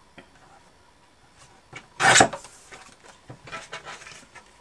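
A paper trimmer cutting through a scrap of card stock: one short, loud scraping cut about two seconds in, followed by lighter rustles and taps of the paper being handled.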